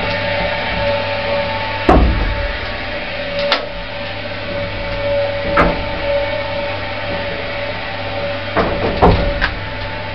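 Old 1970s single-speed Wadsworth lift in motion: a steady motor hum with a low drone and a held whine. Single clunks and clanks sound every couple of seconds, and a quick run of them comes near the end.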